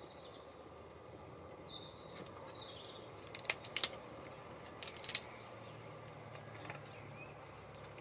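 Short, sharp snaps of dry bark and small bits of kindling being broken by hand, in two quick clusters around the middle, with a few birds chirping in the background.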